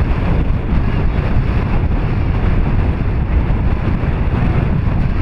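Wind buffeting the camera microphone: a loud, steady low rumble.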